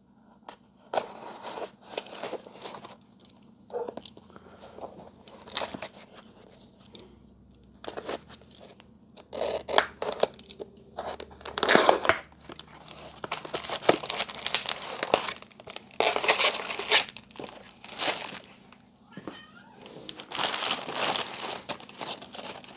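A shipping package being unboxed by hand: packaging torn and crinkled in irregular bursts of rustling, crunching and tearing, which get louder and busier about halfway through.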